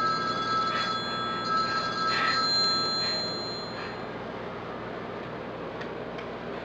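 Electronic ringing, steady high tones pulsing a little under once a second, that stop about four seconds in.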